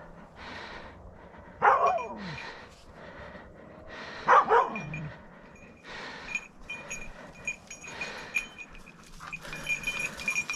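Hunting hound baying: two loud barks that fall in pitch, about two and a half seconds apart, the second a quick double.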